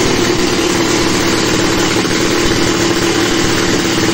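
A freshly swapped-in 400 cc two-stroke motorcycle engine running steadily at idle, its carburettor not yet set.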